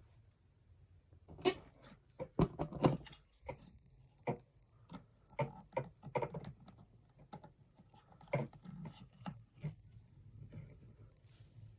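Irregular clicks, taps and knocks of a hair dryer and its packaging being handled, a cluster of louder knocks near the start and scattered lighter ones after. The dryer is not running.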